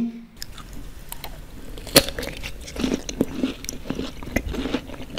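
A person biting and chewing fresh lychees close to the microphone: wet bites and mouth smacks with sharp clicks, the loudest about two seconds in.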